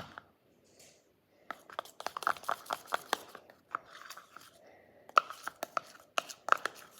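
Spoon stirring a thick, sticky toothpaste-and-lotion slime mixture. It makes a quick run of wet clicks and squelches, which pauses about a second in and again midway.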